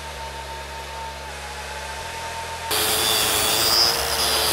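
TIG welding arc tacking stainless steel, a steady hum. A little more than halfway through it cuts abruptly to an angle grinder with a wire wheel brushing the steel, much louder, with a steady whine.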